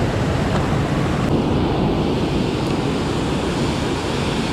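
Steady rush of river water pouring over a low spillway dam and churning below it. Its hiss dulls slightly about a second in.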